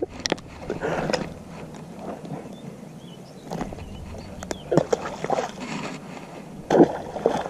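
Rustling and handling noise close to a chest-mounted camera as a just-landed small bass and a baitcasting rod are handled, with scattered clicks and knocks and a sharper knock near the end.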